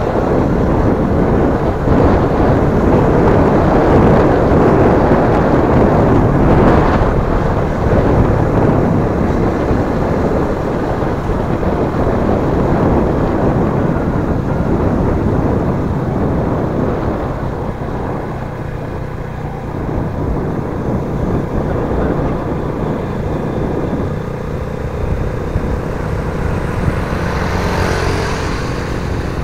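Motorcycle riding sound heard from a camera mounted on the bike: the engine runs under heavy wind rush on the microphone. The wind rush eases after about 17 seconds, leaving the engine's steady hum plainer. Near the end a rising engine sound comes in as a following motorcycle draws close.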